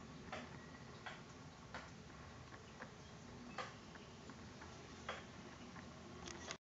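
Faint, irregular sharp clicks or ticks, about one every second, over a steady low background hum.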